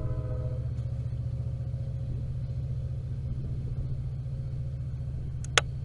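Train horn sounding a held chord that ends about half a second in, over a steady low rumble. A short sharp click comes near the end.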